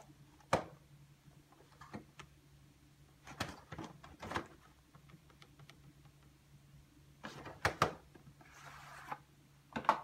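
Handling of a VHS cassette and its cardboard sleeve: scattered clicks and knocks as the case is set down and turned over on a desk, a short rustling slide about nine seconds in as the tape comes out of the sleeve, and a last knock as the cassette is laid down.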